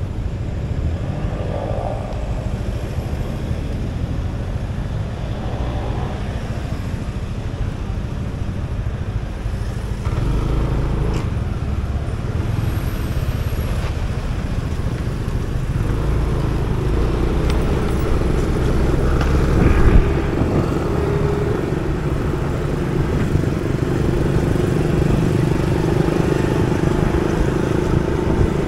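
Motorcycle engine and passing road traffic: vehicles go by in the first half, then the motorbike's engine runs steadily and grows louder as it rides along the road.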